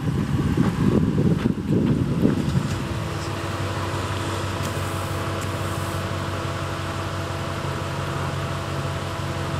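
2017 Ram 1500's 5.7-litre HEMI V8 as the pickup rolls to a stop, with an uneven low rumble for the first two and a half seconds, then settling into a steady idle hum.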